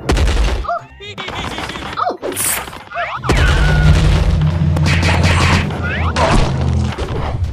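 Cartoon impact sound effects: short sliding whistle-like tones, then a loud boom about three seconds in, with a low rumble lasting several seconds, as a meteor strikes.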